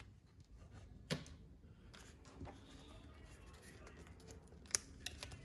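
Faint handling of laptop parts with a few light clicks, one about a second in and a sharper one near the end, over a low room hum.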